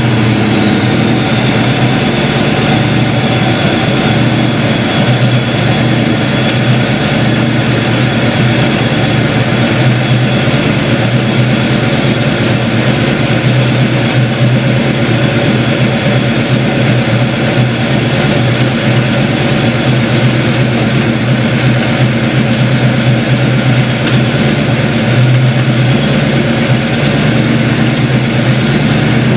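Ford 5.0 V8 of a 1987 Mustang idling steadily and loudly, freshly running with its vacuum leaks fixed.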